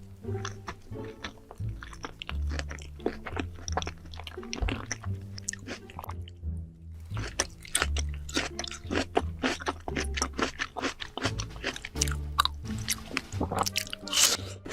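Close-miked crunchy chewing and biting of food, many sharp crunches in quick succession with a brief pause about six seconds in, over background music with a low bass line.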